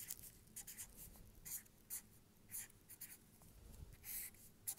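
Felt-tip marker writing on paper: faint, short scratchy strokes at uneven intervals.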